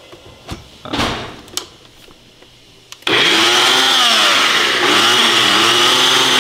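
Countertop blender switched on about three seconds in, its motor running at high speed with the pitch dipping and recovering as the blades chop whole tomatoes and hot peppers into a sauce. Before that, a few hard plastic knocks as the jar is set onto the base.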